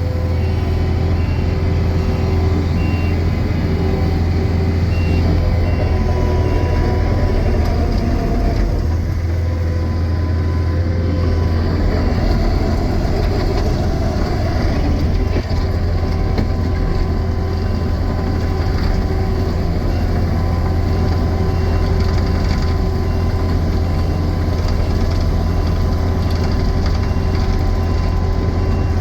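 Takeuchi TL12 compact track loader's diesel engine running steadily under load, with its reverse alarm beeping in runs as the machine backs up.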